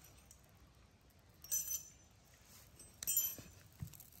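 A metal spoon clinks against a tile floor twice, about a second and a half apart, each with a brief high ring.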